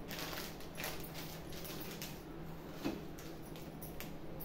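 Plastic spice packets crinkling and rustling as they are picked up and handled, with a few light clicks and taps, over a steady low hum.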